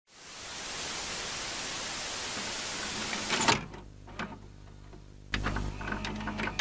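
Intro sound effects: a steady hiss of static fades in and runs for about three and a half seconds, then cuts off with a sharp hit. A low steady hum follows, with scattered clicks, and grows louder about five seconds in.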